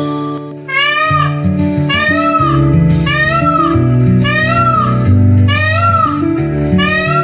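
A peacock calling over and over, about one loud rise-and-fall cry a second, roughly seven in a row, over soft guitar background music.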